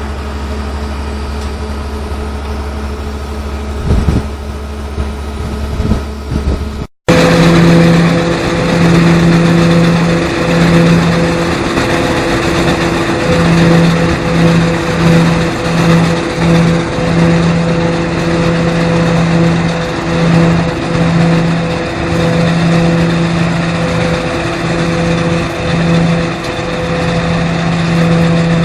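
Machinery running. First comes a steady low hum with a couple of knocks. After a sudden break about seven seconds in, a louder machine drone follows, its steady pitch wavering and flickering.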